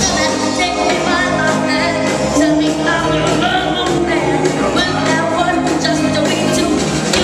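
Live doo-wop vocal group singing in harmony over a backing band with electric bass and drums, amplified through the stage sound system.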